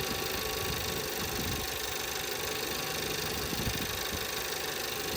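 2017 VW Passat's 1.8 TSI turbocharged four-cylinder engine idling steadily with a new camshaft adjuster solenoid fitted. It runs without misfiring so far.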